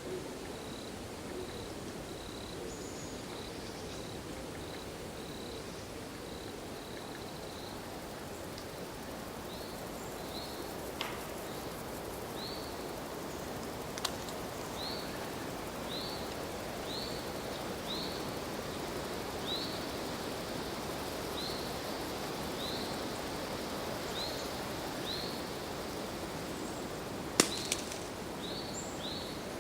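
Autumn forest ambience: a steady background hiss with a bird repeating a short high call, quicker for the first few seconds and then about once a second. A few sharp clicks, the loudest near the end.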